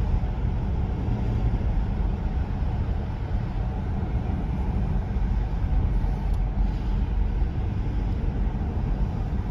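Steady engine hum and tyre rumble of a car driving at a steady pace, heard from inside the cabin.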